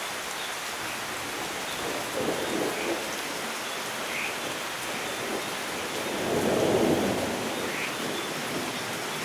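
Steady rain hissing on surfaces, with thunder rumbling twice: a short rumble about two seconds in and a louder, longer one a few seconds later.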